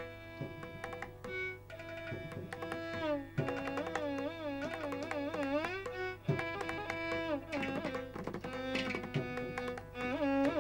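Background instrumental music in an Indian classical style: a melody that slides and wavers in pitch over light hand-drum strokes.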